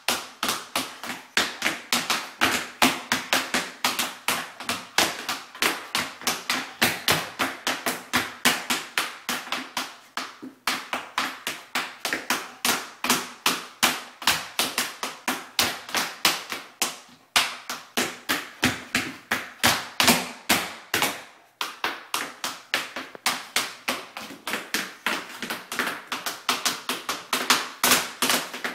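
Child's tap shoes striking a hardwood floor in quick, uneven taps, several a second, with a few short pauses.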